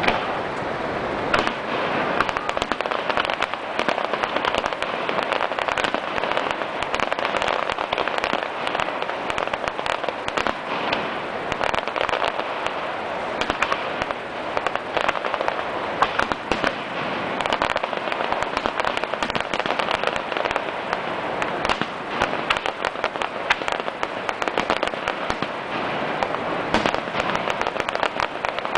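Fireworks display: a rapid, continuous run of pops and crackles over a steady rushing noise.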